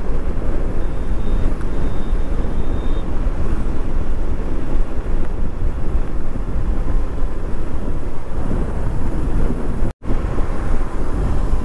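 Motorcycle cruising at about 60 km/h: a steady rush of wind over the microphone mixed with engine and tyre noise. The sound cuts out for an instant near the end.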